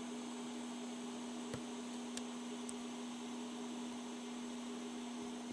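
Steady electrical hum over a faint hiss from running bench equipment, with three faint light clicks between about a second and a half and three seconds in.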